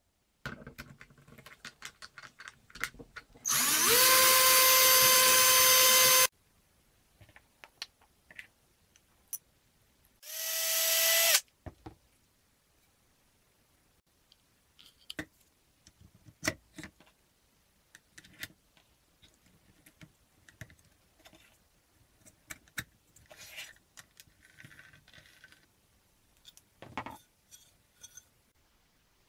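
Handheld cordless drill run twice: it spins up and holds a steady whine for about two and a half seconds, then a shorter burst of about a second that rises in pitch. Afterwards, scattered light clicks and knocks of parts being handled.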